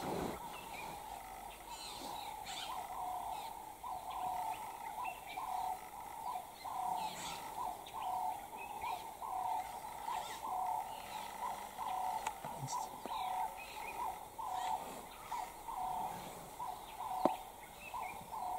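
A bird calls one note over and over at an even pace of about two a second, with scattered higher bird chirps. There is a single sharp click near the end.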